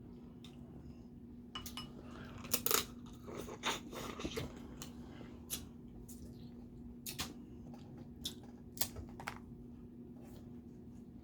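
Close-up eating of snow crab legs and crawfish: shells cracking and snapping at irregular intervals, with chewing, the loudest cracks about two and a half seconds in. A faint steady hum runs underneath.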